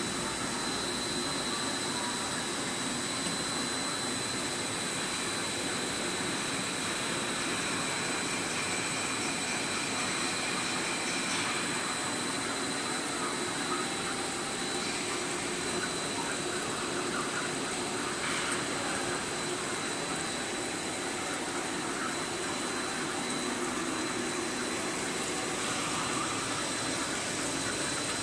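Wood-plastic composite fence panel extrusion line running: a steady machine drone with a constant high-pitched whine over it.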